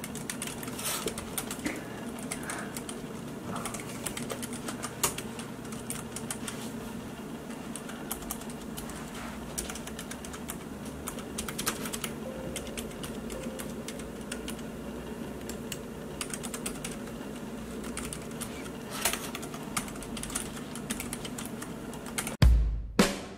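Typing on a Keychron K3 low-profile wireless mechanical keyboard with hot-swap optical white switches: a steady, irregular patter of key clicks. Drum-kit music comes in near the end.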